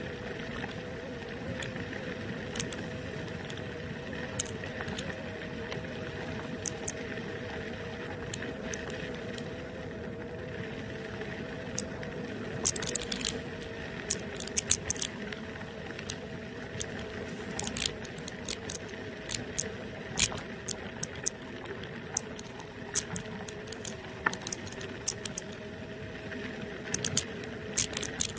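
NIU KQi2 electric kick scooter riding on an asphalt path: a steady hub-motor whine over tyre-on-road rumble. From about halfway on, frequent sharp clicks and rattles come as it runs over bumps.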